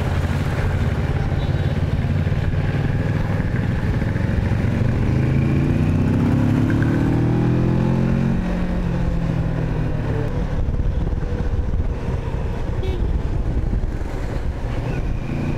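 Kawasaki Versys 650's parallel-twin engine running while riding, its pitch climbing over a few seconds in the middle and then dropping back.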